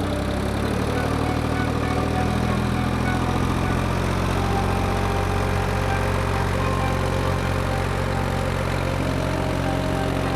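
Engine of a crane lifting a 12-ton steel sailboat out of the water. It runs steadily under load, swelling up right at the start.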